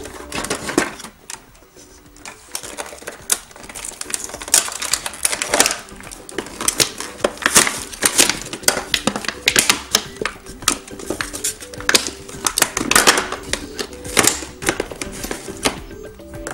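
Plastic playset pieces and their cardboard packaging being handled during unboxing: an irregular run of clicks, knocks and rattles, with light background music underneath.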